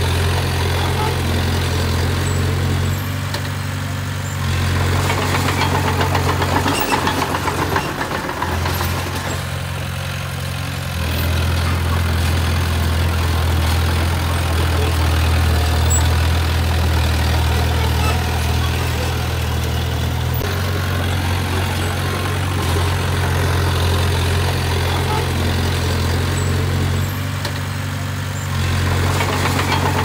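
Bulldozer's diesel engine running steadily at work, easing off briefly three times (about 3 seconds in, around 9 seconds, and near the end) and then picking up again.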